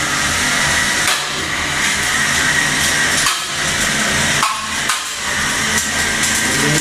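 Small combat robots fighting: a steady whine of their electric motors, with several sharp clanks as the robots strike each other and the arena.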